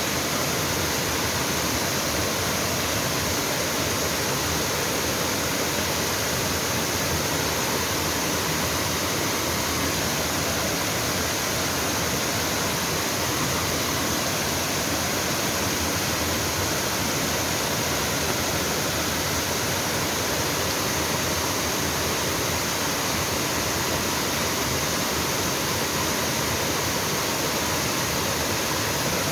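Waterfall pouring into a mountain stream: a steady, even rush of falling water.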